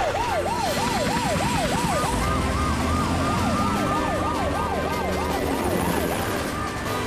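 Cartoon rescue vehicles' emergency sirens: a fast yelping siren sweeping up and down about four times a second, joined about two seconds in by a second, higher siren.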